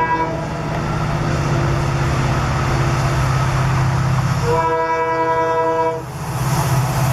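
Train horn sounding over the steady rumble of a moving train: the end of a short blast right at the start, then one longer blast of about a second and a half just past the halfway point.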